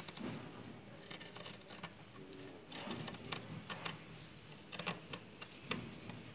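Scissors cutting through fabric in faint, irregular snips.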